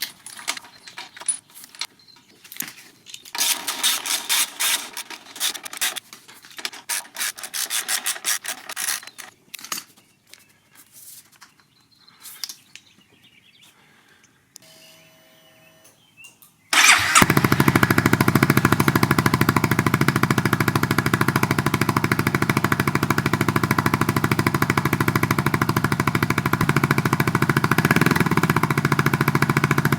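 Metal clinking and rattling of parts and tools being handled, then a little over halfway through a 2015 Honda Forza 300 scooter's single-cylinder engine starts suddenly and settles into a steady idle.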